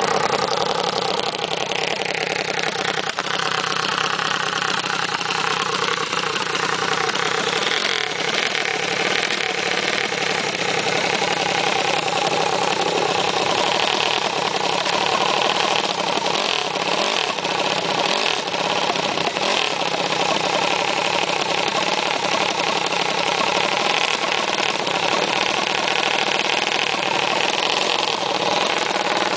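Small minibike engine running. Its pitch falls over the first few seconds as it slows, then it runs on steadily.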